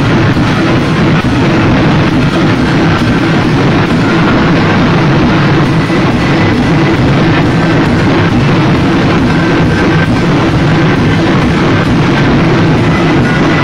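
A festival drum group's drums and cymbals playing a loud, continuous dance beat.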